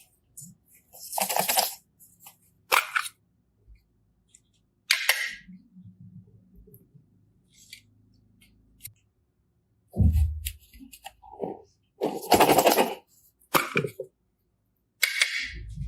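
Slime being handled and pressed, giving a string of short bursts of sound with pauses between them, a few lasting about a second.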